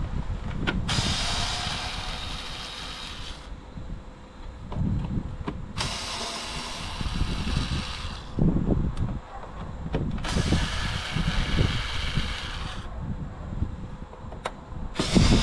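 Parkside cordless screwdriver with a T25 bit running in bursts of about two and a half seconds, three times and starting a fourth near the end, as it backs out the screws of a Mercedes Sprinter's air filter housing lid. Wind rumbles on the microphone throughout.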